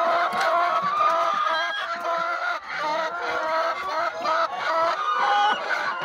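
A flock of laying hens clucking, many short calls overlapping at once.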